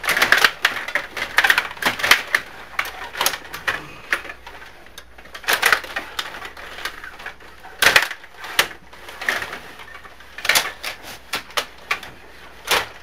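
Rod table hockey game in play: rapid plastic clacking of the rod-worked players, puck and boards, thick for the first few seconds, then sparser, with a sharp hit about eight seconds in.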